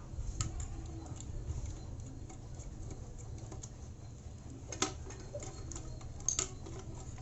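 Scattered small clicks and taps of hands handling an emergency light's plastic housing and circuit board as the board is removed, with two sharper clicks a little past the middle, over a low steady hum.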